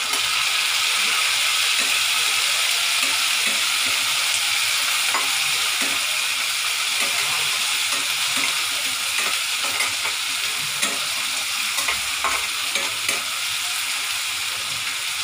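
Chopped onion and tomato sizzling steadily in hot oil in a pan on a gas stove, stirred with a spatula that scrapes and knocks against the pan now and then.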